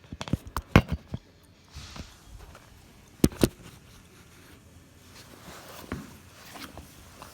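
Sharp knocks and clicks from handling a deadbolt lock cylinder with a broken key stuck in it. There is a quick run of taps in the first second, then two louder knocks about three seconds in, and a few faint clicks after that.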